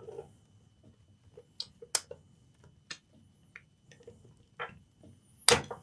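Light, scattered clicks and knocks of a clamp being handled and fitted onto a laptop's plastic case, with a louder knock near the end.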